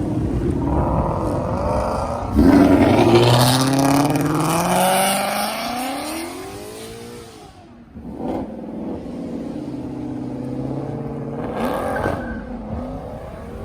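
Muscle car launching hard: its loud engine note jumps up about two seconds in and climbs in pitch as it accelerates, then drops and fades as the car pulls away. Quieter engine noise follows, with short surges near the end.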